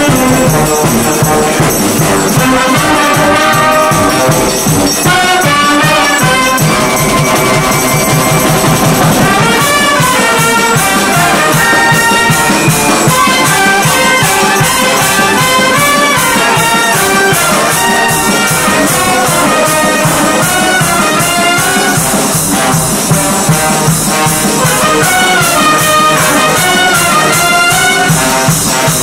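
A brass band playing an arranged tune together: saxophones, trumpets, trombones and a sousaphone. A steady high percussion beat comes in about nine seconds in and keeps time under the horns.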